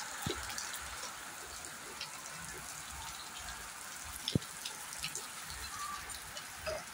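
Heavy rain falling steadily onto a wet concrete terrace and potted plants: an even hiss with many close drops ticking, one sharper tick about four seconds in.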